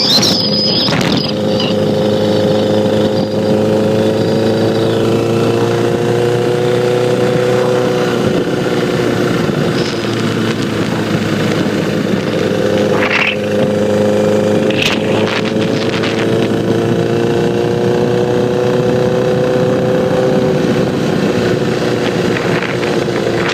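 2009 Honda Repsol sport bike's inline-four engine idling steadily with a ticking noise that persists after a new cam chain tensioner was fitted; the cause is unknown to the owner.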